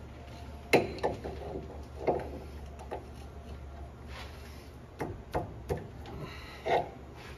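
Metal wrench on a hose fitting of a truck's air lines: a few irregular sharp clicks and scrapes as the wrench is fitted on and the fitting is turned tight, one near the end ringing briefly. A steady low hum runs underneath.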